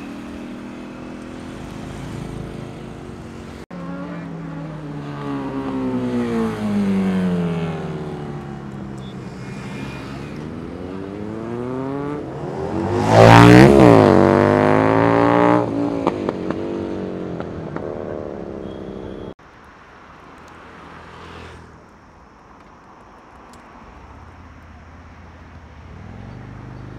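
Sport motorcycle engines revving and riding past, their pitch gliding up and down as they accelerate. Loudest about 13 seconds in, a bike revs hard past with a sharply rising then falling pitch. After a sudden cut at about 19 seconds, a quieter, lower engine sound follows.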